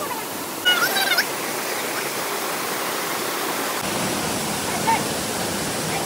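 Waterfall: water pouring over rock with a steady rushing noise.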